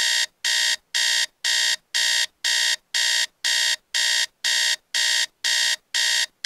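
iPhone alarm going off: a repeating beep, about two beeps a second, each short and high-pitched.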